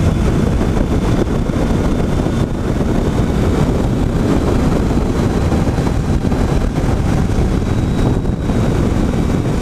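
Triumph Tiger 800 XCA three-cylinder motorcycle running at highway speed, about 110 to 120 km/h, with heavy wind noise on the bike-mounted microphone: a steady, loud rush.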